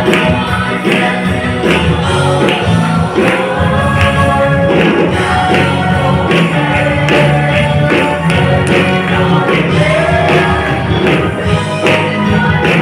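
Choir singing a gospel song in parts, backed by a live band with a drum kit keeping a steady beat about twice a second.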